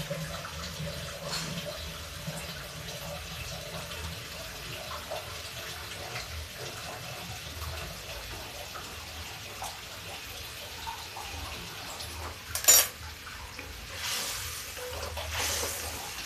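Onion-and-spice masala with a little water simmering in an aluminium kadhai over a gas flame, a soft steady hiss and bubbling. A sharp knock comes about three-quarters of the way through, and near the end a wooden spatula scrapes and stirs through the pan.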